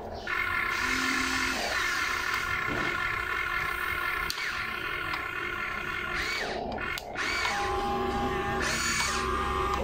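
Radio-controlled model excavator's small electric motors whining steadily as its arm and bucket dig into sand, with the pitch shifting as the moves change.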